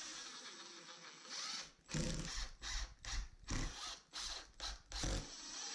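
Cordless drill driving drywall screws into the sub box, run in short bursts about twice a second from about two seconds in.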